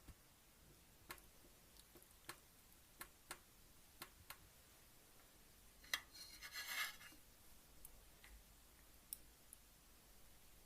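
Faint close-miked eating sounds from someone eating ramen: a series of soft, sharp clicks and a brief louder wet rustle about six seconds in.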